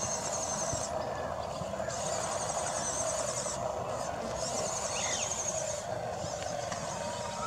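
Outdoor ambience on a grassy hillside: a high, fast-pulsing insect buzz that starts and stops in spells of a second or two over a steady lower hum, with a short falling bird chirp about five seconds in.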